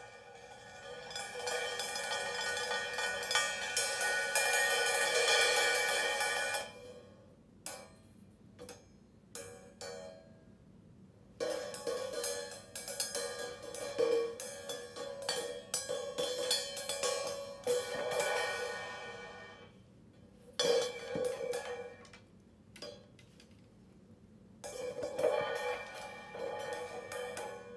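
Cymbals played with drumsticks. Long ringing washes stop abruptly about 7 s and 20 s in, each followed by a few seconds of sparse single taps before the next wash builds.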